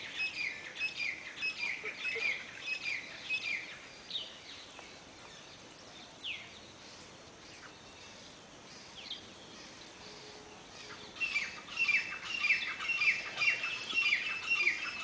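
Brown partridge (teetar) calling: a fast, repeated run of short, falling, high notes, about three a second. It fades out about four seconds in, leaving only a few scattered notes, then starts up again loud about eleven seconds in.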